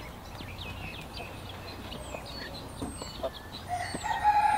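Poultry calling: many short, high peeps and chirps scattered throughout, and a rooster starts a long crow near the end.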